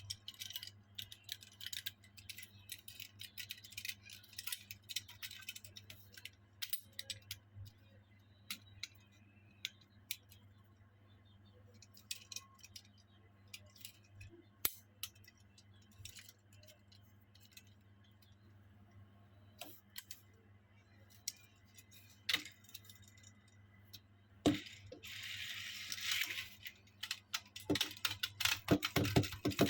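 Tomica die-cast toy cars and their packaging being handled: scattered small clicks and clinks, a few seconds of rustling about 25 seconds in, and a quick run of clicks near the end. A steady low hum sits underneath.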